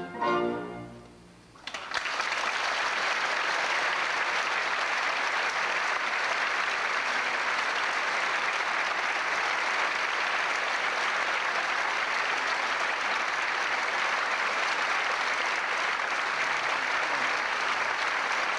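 Orchestral music fades out in the first second and a half, then an audience applauds steadily for the rest of the time.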